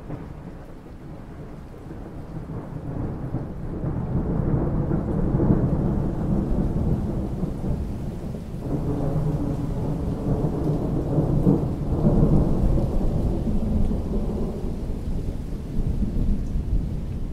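Long roll of thunder over steady rain. The rumble builds over the first few seconds, dips briefly about halfway, swells again and eases toward the end.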